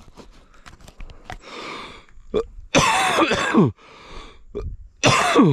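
A man coughing and spluttering after choking on a sip of beer. Two loud, rough coughing fits, one near the middle and one near the end, with small gasping sounds before them.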